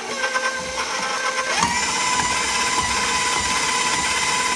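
Electric stand mixer running, its flat beater creaming butter and powdered sugar in a stainless steel bowl. A steady motor whine that rises in pitch about a second and a half in as the mixer speeds up, then holds.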